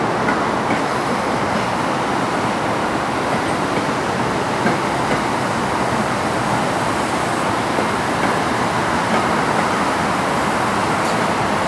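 Metro-North electric multiple-unit commuter train rolling through the station, a steady, loud rumble and rush of wheels on rail.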